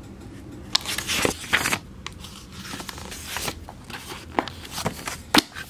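Paperback book pages being turned and handled, with a rustle of paper about a second in, then lighter rustling and a few sharp clicks and taps near the end.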